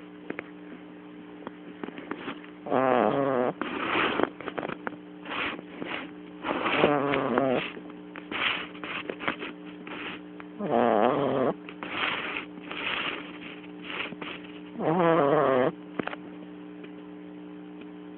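French bulldog snoring in its sleep: long, pitched snores about every four seconds, with shorter snorts and wheezes between them.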